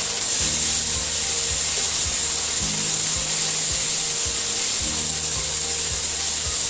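Spatula stirring and scraping through a masala of onions, tomatoes and ginger-garlic paste frying in oil in a nonstick kadai, with a steady frying sizzle and repeated scraping strokes.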